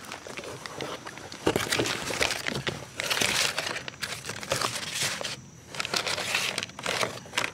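Cardboard box and paper packaging rustling and crinkling in uneven bursts as the parts inside are handled.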